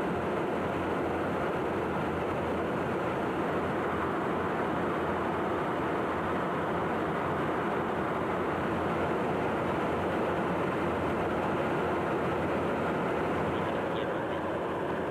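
Steady jet aircraft noise in flight: an even, unchanging rush of engine and airflow.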